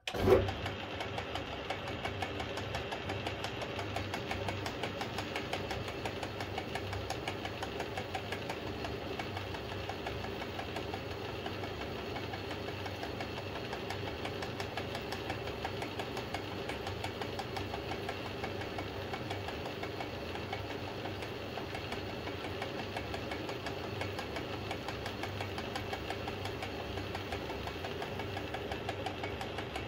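Atlas lathe switched on at the start and running steadily, its electric motor and belt drive humming, while a boring tool takes the final finishing cut inside a metal bushing to open the bore to just over half an inch.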